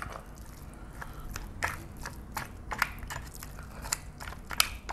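Spoons stirring rice with soy-marinated raw crab and its marinade in ceramic bowls: wet squishing with scattered sharp clicks of spoon against bowl.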